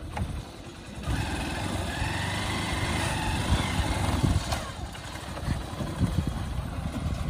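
Honda CB Shine's 125 cc single-cylinder engine running at low revs as the motorcycle rolls down a steep dirt slope.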